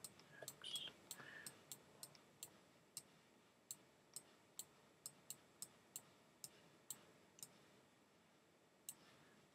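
Faint, irregular clicks of a computer mouse button, about two or three a second, pressed and released for each stroke of on-screen handwriting. They thin out near the end, with one last click.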